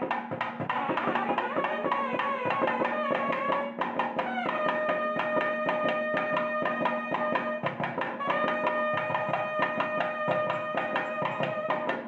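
Instrumental background music with a quick, steady percussion beat. Long held notes come in about four seconds in and again about eight seconds in.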